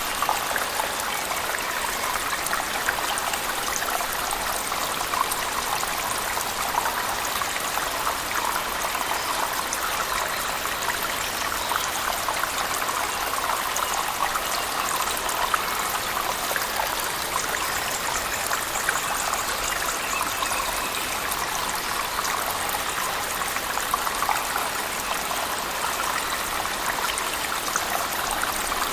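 A waterfall splashing into a cave pool under heavy rain: a steady rush of falling and splashing water, flecked with small drips and splashes.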